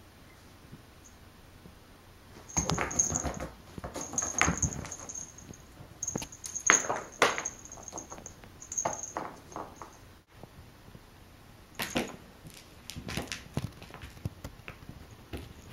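A cat playing: bursts of scrabbling, scratching and soft thumps as she pounces and paws on a fabric floor cushion and wooden floor, with a high jingle coming and going during the movement. The bursts start a couple of seconds in, pause around the middle, and resume for a few more seconds.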